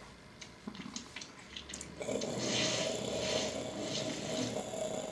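A few soft clicks, then about two seconds in a steady water-like hissing rush starts, with a faint hum beneath it.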